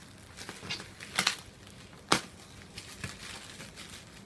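Packaging being handled and opened: a handful of short, sharp rustles and crinkles, the loudest about two seconds in.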